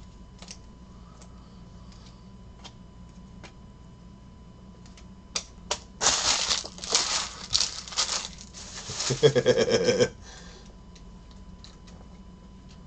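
Stacks of trading cards being handled on a table: a few faint clicks at first, then about four seconds of rapid rustling and clacking as the cards are slid, stacked and squared, before it settles back to faint clicks.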